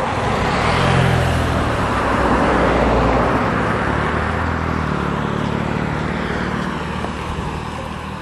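Road traffic: a vehicle passing close by on the highway, its engine and tyre noise rising over the first second, holding strong for a couple of seconds, then fading slowly.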